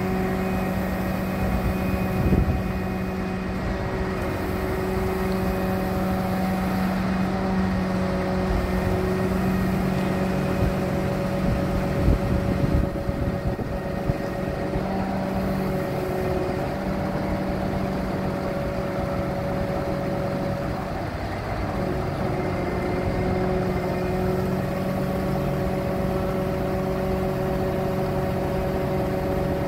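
The Freightliner M2 106 truck's diesel engine runs steadily at a constant speed, powering the hydraulics of the Altec aerial bucket boom as it moves, with an even hum. A few brief low knocks come about two seconds in and again around twelve seconds in.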